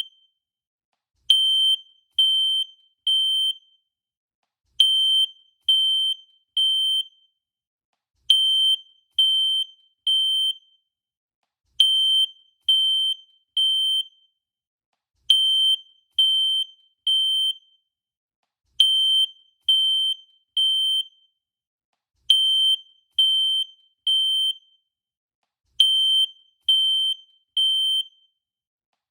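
Fire alarm beeping in the temporal-three pattern: three short high-pitched beeps, then a pause of about a second and a half, repeating about every three and a half seconds. This is the standard fire evacuation signal.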